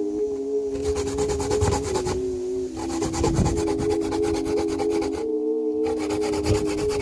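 Fresh coconut flesh being grated on a flat punched-metal hand grater over a metal pot, in fast rasping back-and-forth strokes. The grating pauses briefly about two seconds in and again about five seconds in.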